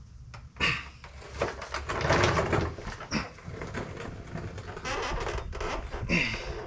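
Scraping and knocking of a heavy truck driveshaft section, its U-joint end, being pulled free and lowered by hand, with a mechanic's creeper rolling under the truck. Sharp knocks come about half a second in, about three seconds in and near the end.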